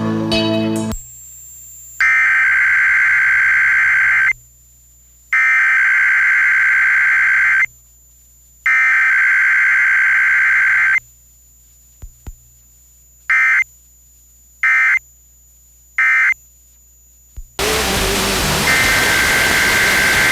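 A song on the radio cuts off about a second in. Emergency Alert System digital header data follows: three identical screechy bursts of about two seconds each, a second apart. Then come three short end-of-message bursts, then a loud hiss of static, and another data burst begins near the end.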